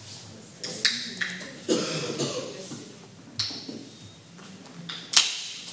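A man coughing and clearing his throat in several short bursts, with a sharp click about five seconds in.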